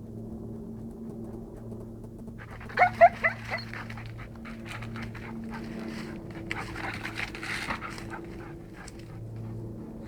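Retriever whining in a quick run of short, high, falling yelps about three seconds in, then panting rapidly.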